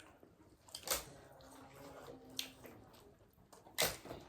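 Close-up eating sounds: a few short wet smacks and clicks of chewing, the loudest just before the end.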